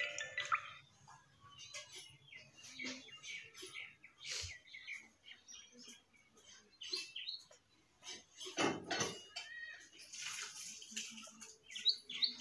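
Small birds chirping faintly, mixed with scattered light clicks of metal suspension parts and bolts being handled; a louder knock about nine seconds in.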